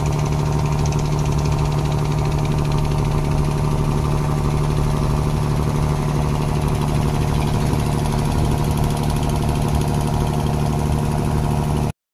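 Tugboat's diesel engine running steadily, a constant low drone, which cuts off abruptly at the very end.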